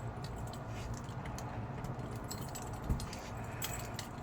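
Keys jingling and clinking in a hand in short scattered bursts, over a steady low hum, with one soft thump about three seconds in.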